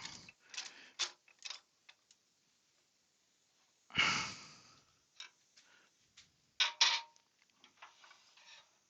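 Scattered clicks and knocks of tools and wood being handled at a woodturning lathe, with a heavier thump about four seconds in and two sharp clacks near seven seconds, one leaving a brief metallic ring.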